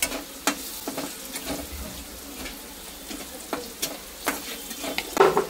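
A metal spatula stirring poha frying in a kadhai, with irregular clinks and scrapes against the pan over a steady sizzle, and a louder clank near the end.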